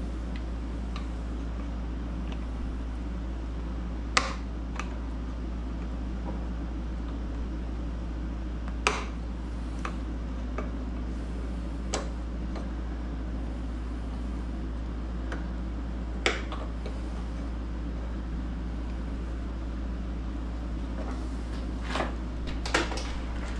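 Hand tools clicking and tapping against a sterndrive gimbal housing while a part is worked loose: single sharp metallic clicks every few seconds, two close together near the end. A steady low hum runs underneath.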